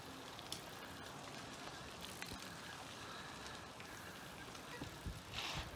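Bicycles rolling past on an asphalt path: faint tyre hiss with scattered light clicks, and a brief louder rush near the end.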